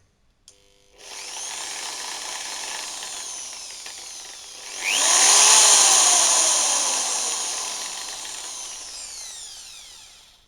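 Ritm DEU-900 electric drill on its first test run after repair: its motor starts with a click, runs steadily, speeds up to a higher whine about five seconds in, then winds down gradually and stops near the end.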